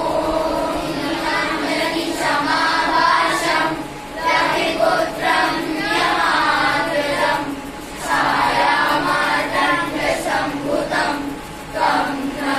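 A group of children singing a prayer together in unison, in phrases a few seconds long with short breaks between.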